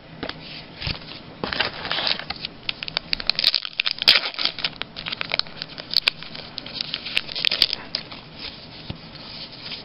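Plastic wrapper of a baseball card pack being torn open and crinkled in the hands: a dense run of crackles and rustles that dies away near the end.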